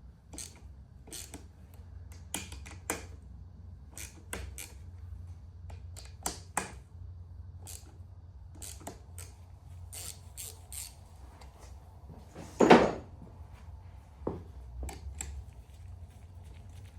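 Scattered clicks and clinks of hand tools and small metal engine parts being handled during valve-shim work on a dirt-bike cylinder head, with one louder knock about three quarters of the way in. A low steady hum runs underneath.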